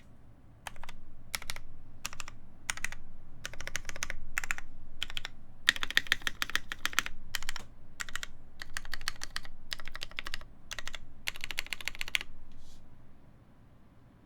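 Typing on a Matrix 8XV2.0add mechanical keyboard with lubed vintage Cherry MX Black linear switches, a forged carbon plate and GMK keycaps: short runs of keystrokes with brief pauses between them, which stop a couple of seconds before the end.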